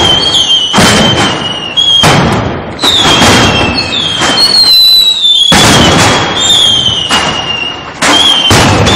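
Firecrackers going off in loud bangs about once a second, overloading the recording, with a high whistling tone that dips slightly between the bangs.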